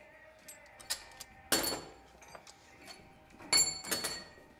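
Metal tools and engine parts knocking together on a workbench: a light tap, then two loud, sharp clinks about two seconds apart, each ringing briefly.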